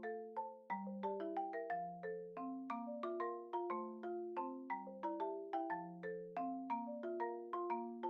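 Background music: a gentle mallet-percussion melody of struck, ringing notes like a marimba or xylophone, played at an even pace of a few notes a second.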